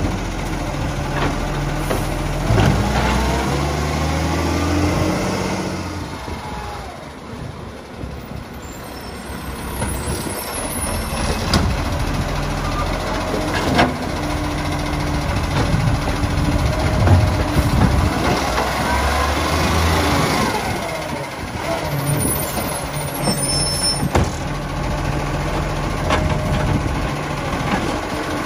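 Iveco side-loading garbage truck working its hydraulic arm: the diesel engine revs up and settles back as the arm lifts, tips and lowers wheelie bins, with rising and falling hydraulic whines. A sharp clank comes about 14 seconds in as a bin is knocked at the top of the lift.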